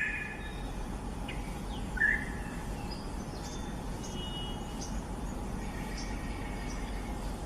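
A few scattered songbird chirps and short calls, the clearest about two seconds in, with fainter high chirps after it, over steady background noise.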